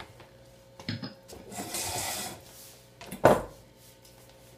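Handling noise as a corded microphone and its cable are picked up and moved: a knock about a second in, a rustling rub, and a heavy thump just after three seconds, over a faint steady hum.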